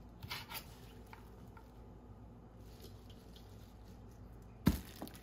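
Quiet handling of cut lettuce leaves as they are placed onto rice in a bowl, with a few faint light taps, then one sharp knock near the end.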